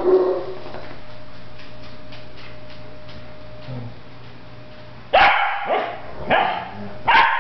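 Dog barking in a tail-chasing play fight: one bark at the start, then a few seconds of low steady hum, then a quick run of sharp barks from about five seconds in.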